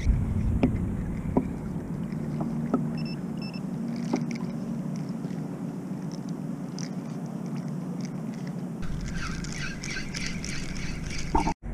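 Sea water lapping against a sit-on-top kayak's hull, with a few light knocks in the first few seconds. About nine seconds in, a louder rush of splashing water takes over.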